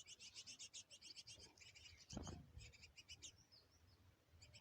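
Small birds chirping in fast, high, repeated notes, several to the second, with a short gap near the end; a faint low thump about two seconds in.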